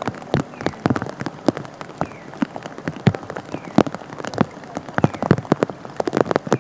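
Heavy rain falling on a flooded street: a steady hiss of rain on standing water, with many close, irregular sharp ticks of large drops.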